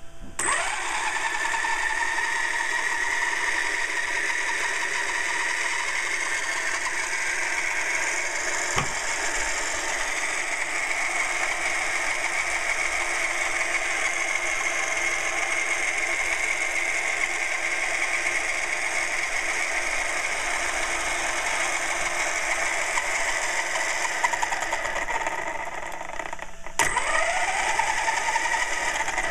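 Redcat Earthquake 8E electric RC truck's motor and drivetrain spinning up and running at a steady speed with a high whine. Its driveshafts are ones the owner suspects are bent. Near the end it slows briefly, there is a sharp click, and it spins up again.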